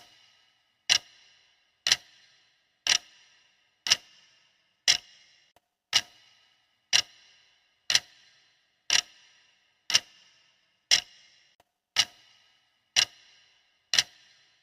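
Clock-style ticking of a countdown timer's sound effect: one sharp tick a second, evenly paced, each dying away quickly.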